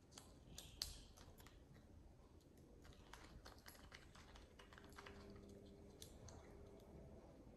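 Blue-and-gold macaw cracking and nibbling a walnut with its beak: a string of light, irregular clicks and cracks, the sharpest about a second in.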